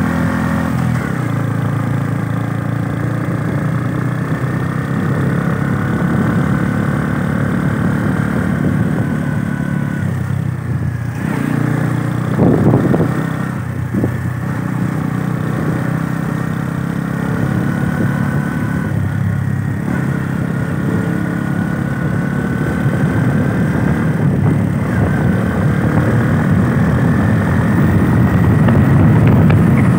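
Motorcycle engine running steadily while riding, with a brief change in the engine note about twelve seconds in.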